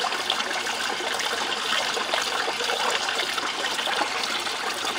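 Water trickling steadily over a DIY miller table, a thin sheet running down the sloped deck and off its end while black sand concentrate washes through it.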